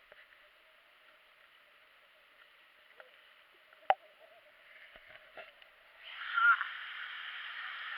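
Steady rush of falling water from a waterfall, faint at first and much louder from about six seconds in, with a single sharp click near four seconds.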